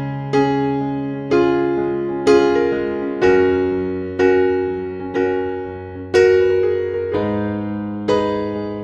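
Background music: slow keyboard chords, struck about once a second and left to ring out.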